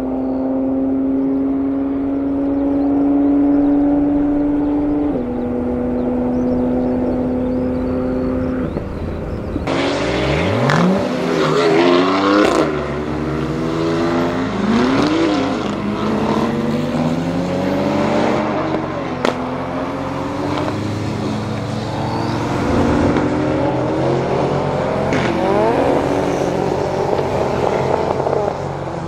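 A tuned Porsche 991 Turbo S and an Aston Martin Vantage accelerating flat out away from the listener, their engine notes rising steadily with one upshift about five seconds in. After an abrupt change about ten seconds in, several more cars, a BMW M3 among them, accelerate hard past the listener. Their engines rev up through the gears in overlapping rising and falling notes, with a few sharp cracks.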